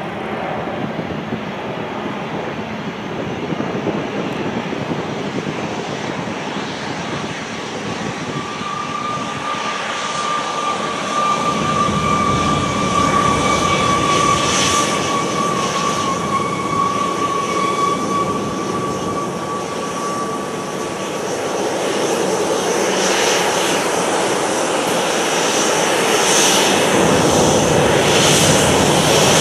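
Boeing 737-800's CFM56-7B jet engines running as the airliner rolls along the runway after landing. Steady jet noise with a thin high whine through the middle, growing louder over the last several seconds as the aircraft comes nearer.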